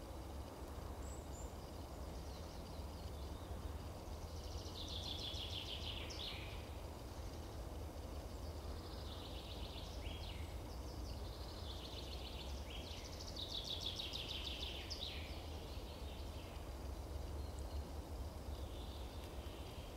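A small songbird singing four short, fast trilled phrases a few seconds apart, each ending in a quick downward flourish, over a steady low rumble.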